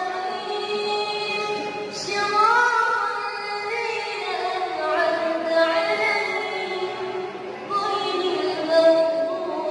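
A young imam's solo voice reciting the Qur'an in a melodic, chanted style. Long held notes slide and turn between pitches, with short breaks between phrases.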